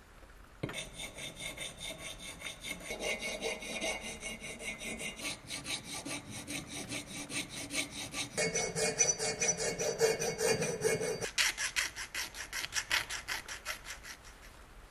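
Flat hand file scraping the edge of a metal model-aircraft wing in quick, even, repeated strokes, with a high metallic ring. It starts about a second in and stops near the end.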